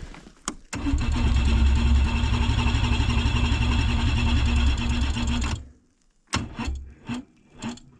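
Snowmobile's electric starter cranking the engine with a steady rhythmic pulse for about five seconds without it catching, then stopping; several sharp clicks follow. The battery is too weak to start it, which the owner puts down to the −30 cold.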